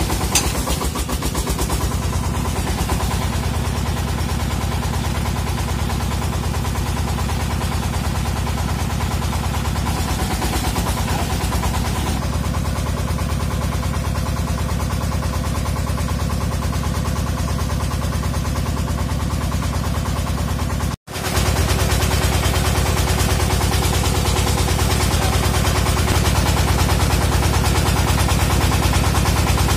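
Engine of a well-drilling rig running steadily with a fast, even pulsing beat. About two-thirds of the way through it breaks off for an instant and comes back a little louder.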